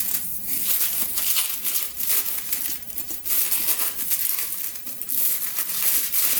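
Irregular crinkling and rustling as a travel bag, and possibly its wrapping, is handled.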